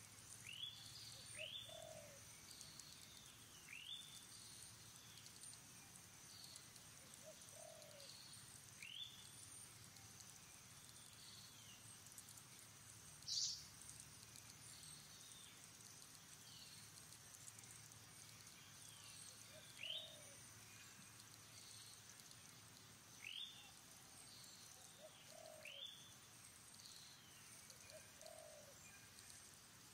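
Faint bird calls: short rising whistled notes repeating every second or two, with a few low cooing notes, and one louder sharp high call about a third of the way through.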